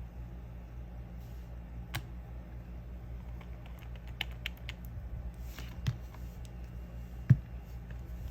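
Light clicks and taps of small nail-product bottles and tools being handled, with one sharper knock about seven seconds in, over a steady low hum.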